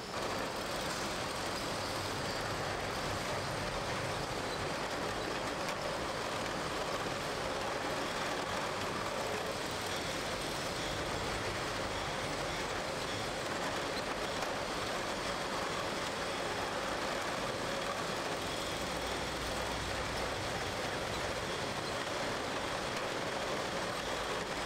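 Steady machinery noise of a beer bottling line, its crate conveyors running, with a faint constant hum.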